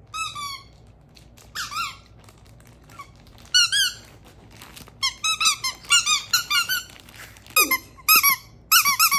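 Rubber squeaky ball toy squeezed by hand, squeaking in short sharp bursts: a few separate squeaks at first, then a quick run of squeaks about five seconds in and another near the end.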